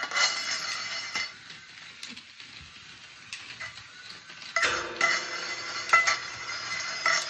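Small battery-powered toy car with a worm-gear drive whirring as it drives on a tile floor: a steady high motor-and-gear whine with a few clicks. The whine fades about a second in and returns louder at about four and a half seconds.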